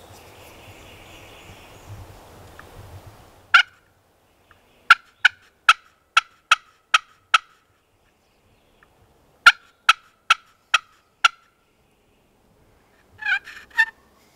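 Friction pot call worked with a wooden striker, giving wild-turkey yelps: a single note, then a run of about seven quick yelps, a pause, a run of five, and a rougher burst of notes near the end. The hunter is calling to draw an answer from a gobbler.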